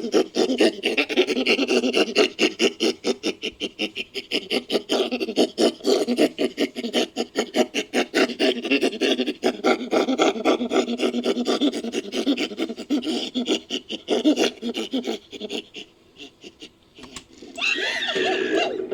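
Chimpanzee-based creature sound effect: a long run of rapid panting grunts, about three a second, that dies away after about fifteen seconds, followed near the end by a short, higher, wavering call.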